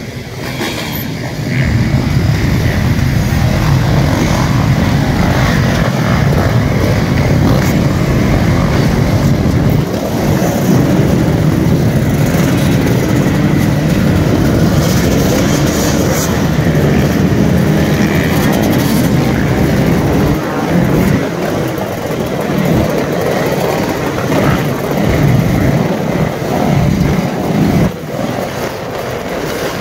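A pack of motocross dirt bikes' engines running together in a loud, continuous din as the bikes queue past. The noise swells about two seconds in and rises and falls in level.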